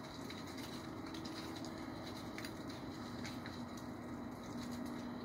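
Dry leaves falling from a tree, ticking and pattering faintly and irregularly as they land, over a steady low hum.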